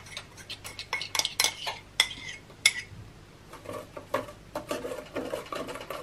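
A utensil stirring batter in an enamel pot: sharp clinks that ring against the pot's side in the first half, giving way to softer, quicker scraping in the second half.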